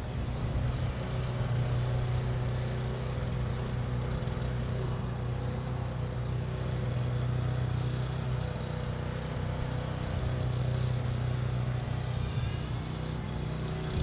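Parrot Bebop 2 quadcopter's propellers humming steadily in flight: an even, low drone with fainter higher tones above it.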